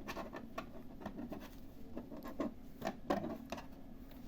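Hands handling and opening a new HP printer and its packaging: scraping, rubbing and scattered small clicks and knocks, the sharpest about three seconds in.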